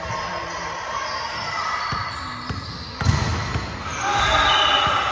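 A volleyball bouncing on a wooden gym floor: a few sharp bounces, the loudest thuds about three seconds in, echoing in a large hall, with players' voices calling out near the end.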